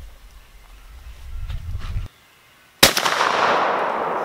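One loud shot from a Stevens Model 94 .410 single-shot shotgun: a sharp crack nearly three seconds in, then a long rolling echo through the woods that fades over about two seconds. A low rumble comes before the shot.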